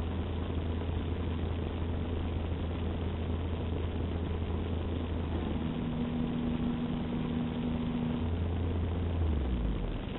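A utility boom truck's engine runs at a steady speed, muffled through window glass. About halfway through its tone changes, and near the end its pitch drops as it slows.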